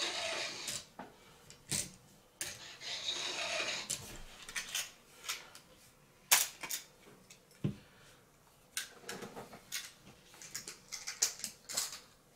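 Unboxing and handling of a manual coffee grinder: packaging rustling and irregular clicks and knocks of small parts being picked up and set down, with a sharper knock about six seconds in.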